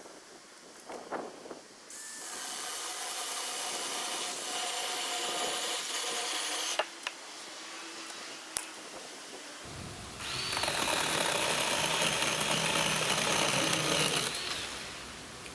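A small electric motor runs steadily for about five seconds and stops. About two seconds later it runs again, louder, for about four seconds, its whine rising as it spins up.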